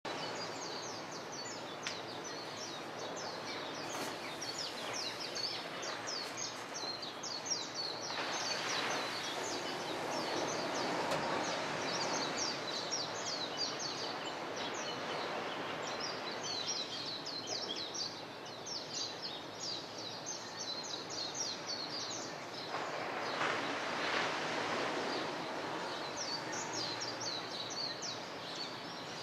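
Many small birds chirping in a dense dawn chorus of short, high calls, over a steady rushing wash that swells twice.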